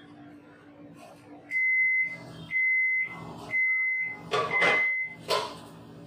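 Samsung microwave oven running with a low hum, then finishing its cooking cycle about one and a half seconds in and sounding its end-of-cycle alert: four long, high, steady beeps about a second apart. A couple of short noises come near the end.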